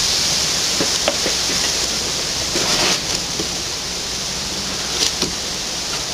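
Steady hiss of noise, with a few faint clicks about a second in and again around five seconds in.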